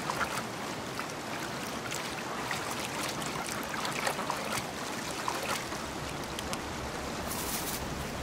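Fast, strong current of the Lech, an Alpine river, rushing steadily with many small splashes, and a brief louder burst of splashing near the end.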